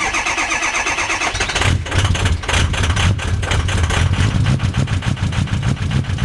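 A 6.0L engine cranking on the starter for about a second and a half, then catching and running at a cold idle. The uploader puts its hard cold starting down to bad injectors.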